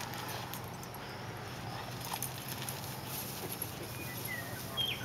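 Basset hound puppy sniffing at the dirt and then scampering across grass: faint footfalls and snuffling over a low steady hum, with a few short faint chirps near the end.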